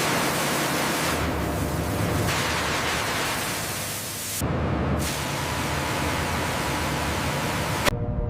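A loud, steady hissing rush that starts abruptly and cuts off suddenly near the end. Its high part drops out briefly about four and a half seconds in, then returns.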